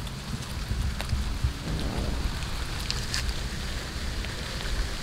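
Cat chewing raw fish: wet crunching and smacking with scattered small clicks, a few sharper crunches about three seconds in, over a low steady rumble.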